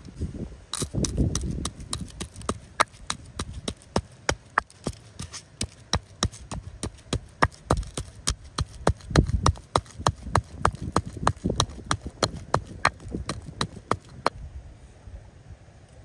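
Rapid, evenly spaced sharp knocks, about three to four a second, that stop near the end.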